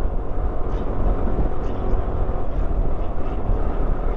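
A motorcycle underway: steady wind rush over the microphone, with a continuous low rumble of engine and road beneath it.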